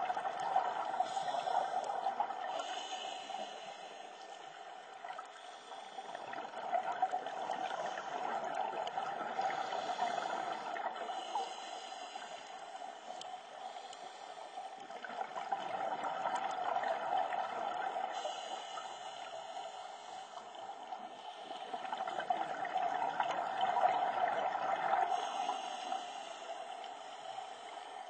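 Scuba diver breathing through a regulator underwater: each exhale releases a rush of bubbles, giving four long swells about every seven seconds.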